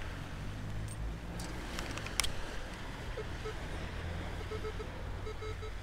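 Minelab Vanquish 540 metal detector giving short, broken beeps on a target as its coil sweeps over the sand, starting about three seconds in, over a steady low rumble of wind and surf. A sharp click about two seconds in.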